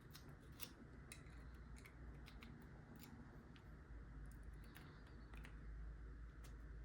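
Faint, irregular metallic clicks of a tickler-style lock pick being worked in a padlock's keyway, jiggling against the pins.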